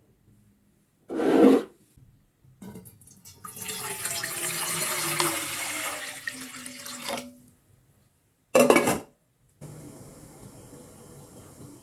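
Water pouring or running for about four seconds, with a tone that slides downward, between two short loud thumps; a quieter steady hiss follows near the end.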